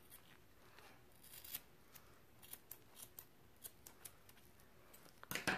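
Faint, scattered small clicks and rubbing from a soap-and-marble-filled balloon being handled, with a louder cluster of clicks near the end.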